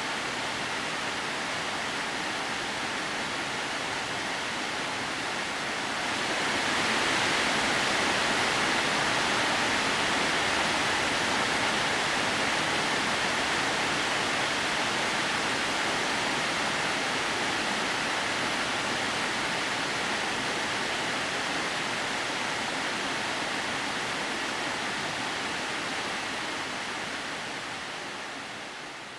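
Waterfall spilling in thin streams down a 30 m rock face: a steady rush of falling water. It grows louder about six seconds in and fades away at the very end.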